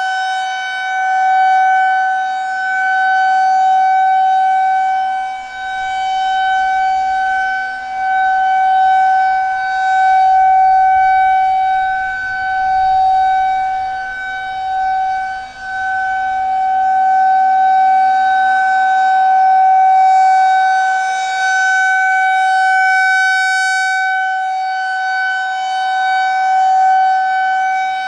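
Federal Signal 2001-130 outdoor warning siren sounding the full alert, heard from about 330 feet away. It holds one steady high tone with its overtones, swelling and fading every several seconds as the rotating siren head turns toward and away.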